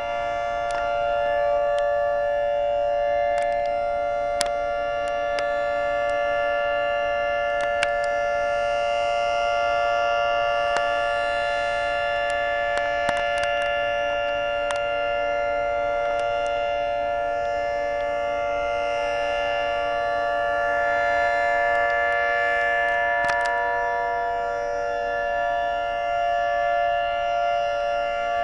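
Federal Signal 3T22 three-tone outdoor warning siren, roof-mounted, sounding a steady chord of several tones during a test.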